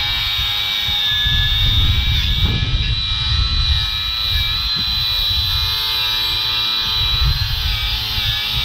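Harbor Freight Earthquake XT 20V brushless 4.5-inch angle grinder running with a steady high whine as a 30-grit flap disc grinds rust off a cast-iron brake rotor. Wind rumbles on the microphone.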